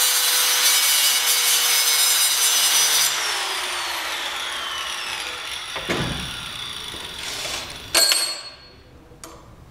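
Angle grinder with a cut-off disc cutting through a metal bar, with a loud steady whine and grinding noise. About three seconds in it is switched off and the whine falls as the disc spins down. A sharp metallic clank comes near the end.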